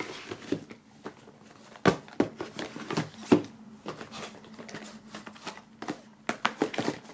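Plastic DVD cases knocking and sliding against each other and the cardboard sides as they are packed into a box: scattered clacks and rustling, with a quick run of clicks near the end.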